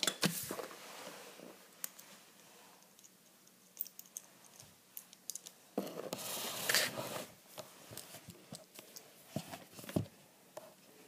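Small plastic Lego pieces being handled, with light clicks and taps as they are moved and set down on a wooden floor. There is a brief brushing noise about six seconds in and a sharper tap near the end.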